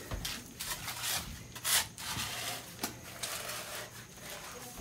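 Shovel digging into soil: a run of irregular scrapes and crunches with a few sharp clicks, the loudest scrape about a second and a half in.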